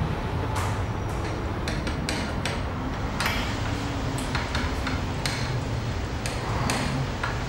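Repair-shop sounds: irregular metallic clinks and knocks of tools and parts being handled, over a steady low hum.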